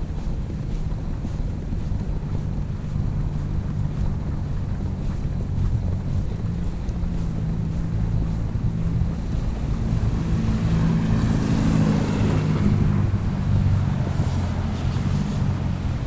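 Snowstorm wind buffeting the microphone: a steady low rumble that swells louder and brighter about eleven to thirteen seconds in, then eases.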